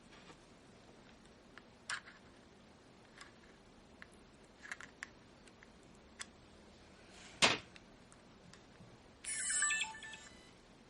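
Small clicks and taps from handling an opened Sony compact digital camera, with one sharp, louder click about seven and a half seconds in. Near the end comes about a second of a high whirring sound made of several pitches at once.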